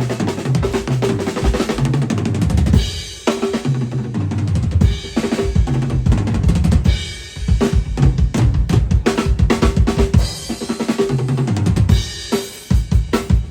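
Drum kit played in a steady, busy groove: bass drum, snare and fills, with cymbal crashes every few seconds, sounding out during a pre-show sound check.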